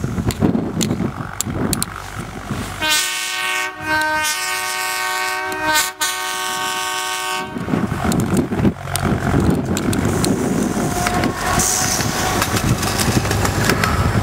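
Narrow-gauge locomotive sounding its multi-note horn as it approaches, a long blast starting about three seconds in and a shorter one right after. Then the rumble and clatter of the train passing close by.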